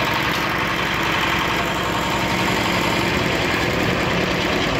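Engine of a hoist for lifting concrete and building materials, running steadily.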